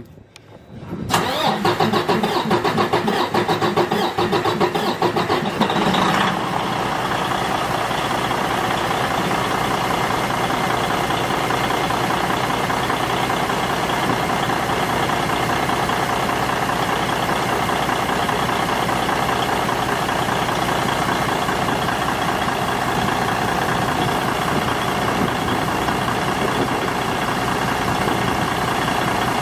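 Detroit DD15 diesel engine starting up about a second in, running unevenly, then settling into a steady idle about six seconds in. The engine has a misfire on cylinder 4 from a broken intake valve.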